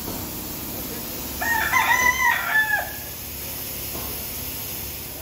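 A rooster crows once, a single call of about a second and a half starting about a second and a half in, over steady low background noise.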